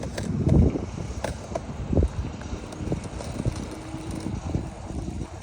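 Wind buffeting the microphone, a low rumble with two stronger gusts, about half a second and two seconds in.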